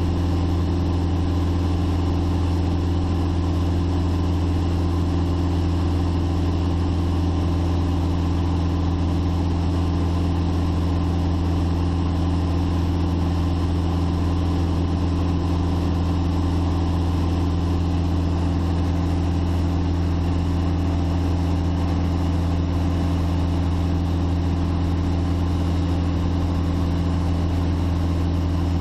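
Light aircraft's piston engine and propeller running steadily in cruise, a constant low drone heard from inside the cabin.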